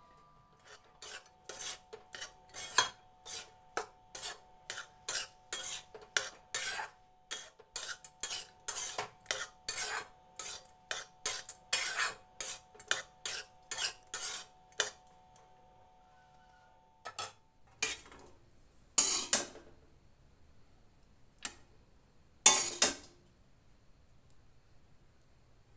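A metal spatula scraping and stirring rice in a metal kadai, in quick repeated strokes about two a second, mixing lemon rice. The stirring stops about fifteen seconds in, followed by a few single scrapes a couple of seconds apart.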